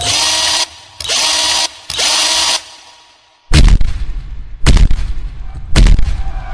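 Loud electronic sound effects in a dance track: three bursts of static-like hiss about a second apart, a brief drop almost to silence, then heavy booming hits about once a second.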